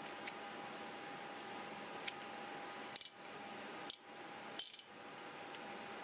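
A few short, sharp metallic clicks and clinks as a chrome vanadium steel impact socket and a ratchet wrench are handled, the loudest three coming close together from about three seconds in, over a steady faint hiss.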